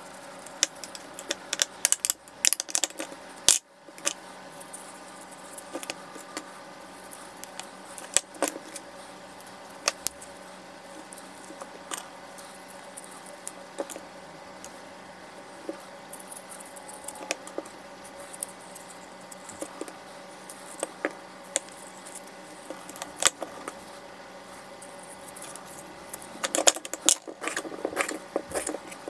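Spoon clinking and scraping against a ceramic bowl as feijoa flesh is scooped out of the halved fruit, in scattered sharp taps; near the end a kitchen knife cuts feijoas on a wooden chopping board in a quicker run of taps. A steady faint hum sits underneath.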